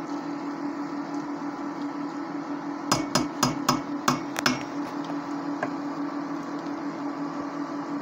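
A steady hum, with a quick run of about seven sharp taps between three and four and a half seconds in: a stirring utensil knocking against the stainless steel pan.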